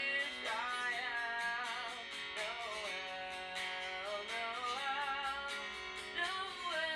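Background music: a song with a strummed acoustic guitar under a singing voice.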